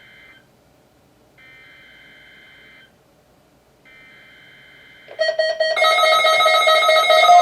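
NOAA Weather Radio SAME digital header played through a weather radio's speaker: three bursts of buzzy data tones, each about a second and a half, with short gaps between, marking the start of a Required Weekly Test. About five seconds in, Midland weather radios start their alert tones, much louder, several tones sounding at once.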